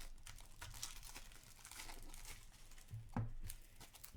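Packaging of a hockey trading-card box being torn open and crinkled by hand, with irregular rustling and one sharper knock about three seconds in.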